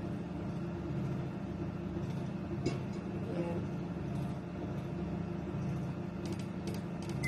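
Microwave oven running with a steady low hum while it heats popcorn kernels, one faint click about three seconds in, the hum cutting off near the end as the timer runs out.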